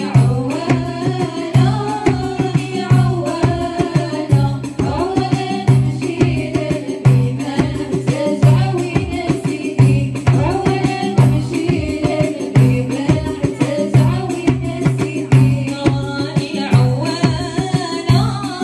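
A woman singing an Arabic nasheed (devotional song) with a steady hand-drum beat of about two strokes a second.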